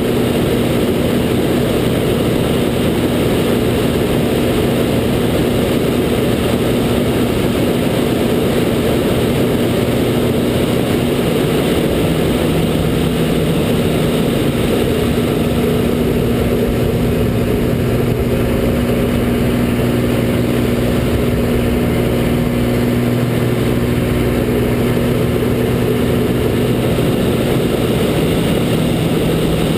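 Extra 300 aerobatic plane's Lycoming six-cylinder engine and propeller droning steadily, heard from inside the cockpit during aerobatic manoeuvres. The engine note shifts slightly about twelve seconds in and again near the end.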